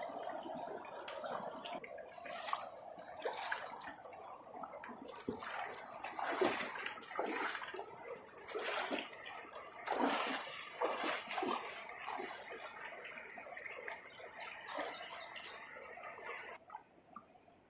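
River water splashing and sloshing irregularly, with several louder splashes, then cutting off suddenly near the end.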